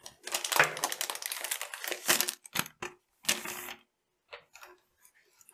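Plastic packaging crinkling and rustling as a docking station is pulled out of its box: about two seconds of dense crackling, then a couple of shorter rustles and a few light clicks.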